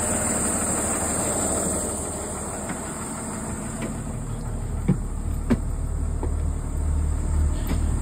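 Blue Bird school bus's Cummins diesel engine idling steadily, with a low hum. Two short knocks come about five seconds in, as feet climb the entrance steps.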